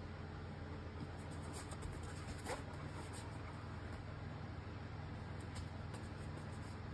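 Faint claw ticks and scratching from an English Springer Spaniel moving about on foam floor mats, over a steady low hum, with one short rising squeak about two and a half seconds in.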